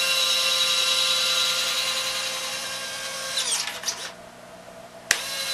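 Two small DC gear motors driving the jack-screw actuators of converted Robart 630 retracts, running with a steady whine as the landing gear lowers. About three and a half seconds in, the whine drops in pitch with a few clicks and stops as the gear reaches the down position, where the controller ends travel by sensing the motor current. After about a second's pause, a click and the motors start again near the end.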